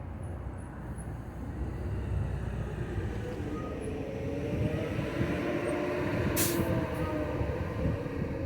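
A heavy vehicle rumbles past, its engine tone building and getting louder in the middle. A short, sharp hiss comes about six seconds in.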